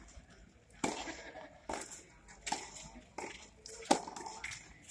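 Tennis rally: a quick series of sharp knocks, the ball struck by rackets and bouncing on the hard court, about every three-quarters of a second from about a second in.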